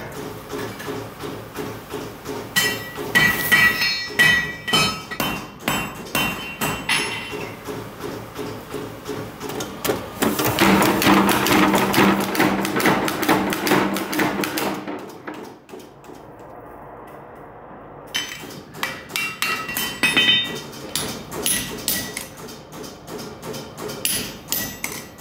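Hammer blows on red-hot iron at a blacksmith's anvil, the anvil ringing with each strike as horseshoes are forged and punched. About ten seconds in, a mechanical power hammer pounds rapidly for about four seconds. A quieter stretch follows before the hand-hammer strikes resume.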